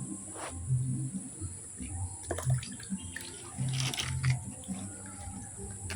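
Light water splashing and sloshing, loudest about four seconds in, with scattered clicks and a steady high-pitched drone underneath.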